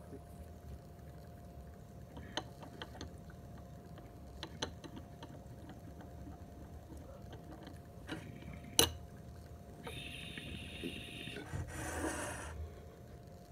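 Water in a glass bong gurgling quietly as a dab is inhaled through it, with light metal clicks of a dab tool against the quartz banger and one sharper clink about nine seconds in. A breathy hiss near the end.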